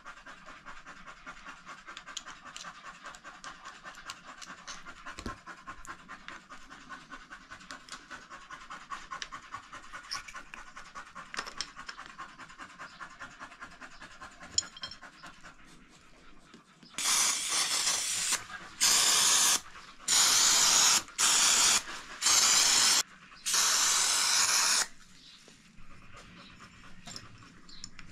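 A dog, a German hunting terrier, panting quickly and steadily. In the last third, a run of six loud hissing blasts, each under two seconds, cuts in over it.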